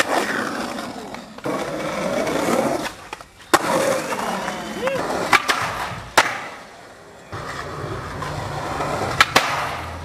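Skateboard wheels rolling on concrete, broken by several sharp clacks of the board popping, hitting and landing tricks, over a few short clips.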